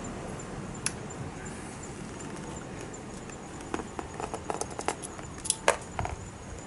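Light clicks and taps of hand tools and small carburetor parts being handled: one click about a second in, then a run of irregular taps later on, the loudest about five and a half seconds in.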